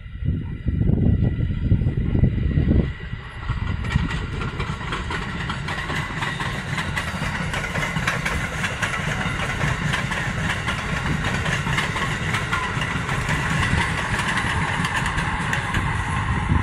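Amtrak passenger train passing at speed behind an ACS-64 electric locomotive: a steady rush of wheels on rail with rapid clicking, after a louder low rumble in the first few seconds.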